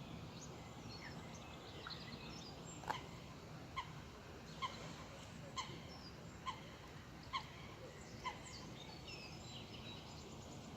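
Ducks quacking faintly: a run of short quacks about once a second, with small birds chirping high above them.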